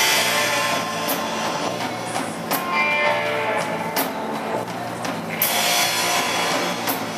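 Live rock band playing: electric guitar, electric bass and drum kit, with regular cymbal crashes.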